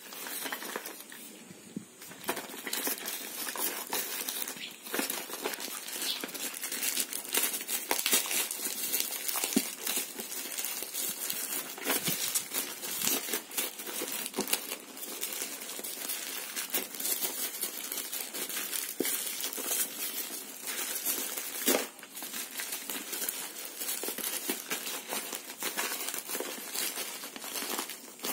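Plastic courier bag and bubble wrap being handled and pulled open by hand: continuous crinkling and rustling of plastic with many sharp crackles.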